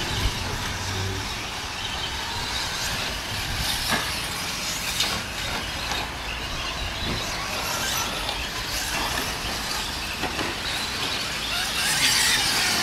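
Electric 1/10-scale 2wd short-course RC trucks racing around the track: a steady hiss of motors and tyres, with a few sharp ticks.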